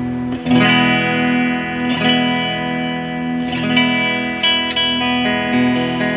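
Modified Fender Japan ST54-95LS Stratocaster electric guitar on its rear pickup, played through an amp: strummed chords ringing out, with new strums about half a second, two seconds and three and a half seconds in and quicker chord changes near the end. Its TBX tone control is turned toward the treble side.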